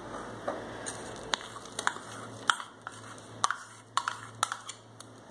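Steel spoon clinking and scraping against a stainless steel bowl as mashed banana is spooned out into cake batter: about a dozen sharp, irregular clinks.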